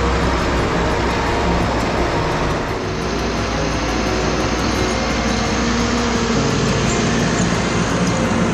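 Heavy diesel engines of forestry skidders running steadily. About three seconds in, the sound changes abruptly to a green Orvex LT100 skidder pulling a load of logs through snow.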